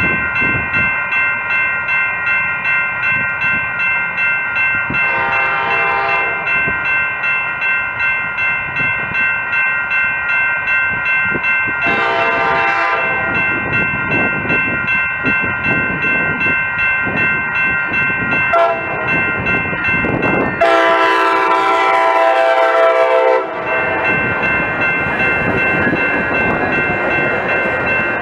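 Grade-crossing bell ringing steadily while an approaching Coaster commuter train sounds its horn for the crossing in the long, long, short, long pattern, the last blast about three seconds long. The train's wheels then rumble on the rails as it passes near the end.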